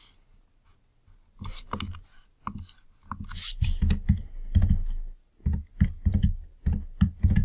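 Computer keyboard keystrokes, irregular and several a second, starting about a second and a half in and growing heavier in the second half, as code is copied and pasted.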